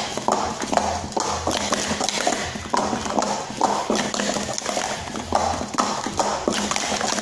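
Plastic speed-stacking cups being stacked into pyramids and swept back down at speed on a stacking mat: a fast, uneven run of plastic clacks and clatters, several a second.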